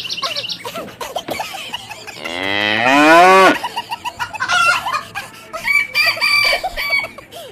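Comedy sound effects of farm animals: a cow's single long moo a little after two seconds in, followed by a run of short hen clucks.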